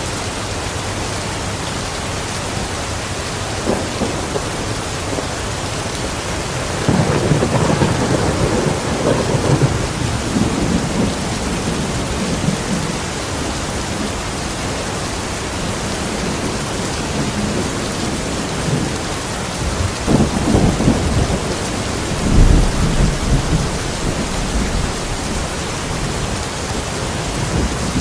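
Steady rain with rolls of thunder rumbling under it, the loudest about seven to ten seconds in and again from about twenty to twenty-four seconds.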